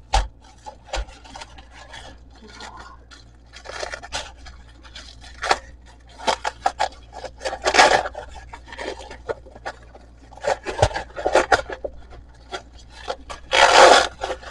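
Close rustling and scraping handling noises in irregular strokes of varying length, with a few soft knocks; the longest and loudest scrape comes near the end.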